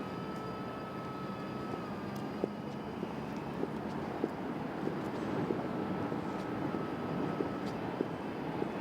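Steady outdoor background rumble, like distant traffic, with a faint thin whine that comes and goes. From about two seconds in, light taps sound roughly every half second to a second.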